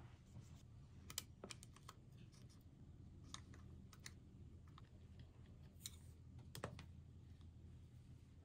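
Faint, scattered clicks of chopsticks tapping against each other and against a small lunch box as food is placed into it, over a low steady hum of room tone.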